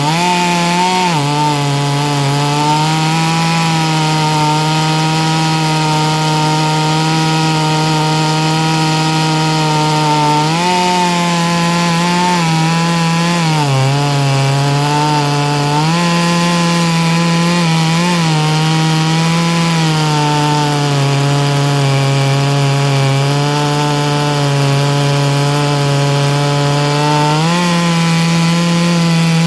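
Ported two-stroke chainsaw running flat out through a pine log, its engine note sagging as the chain digs into the cut and climbing again as it eases off.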